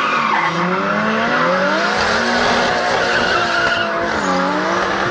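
Racing go-kart engines revving up and falling back as they are driven hard. Several engine notes overlap and glide in pitch, over a steady hiss of tyre noise.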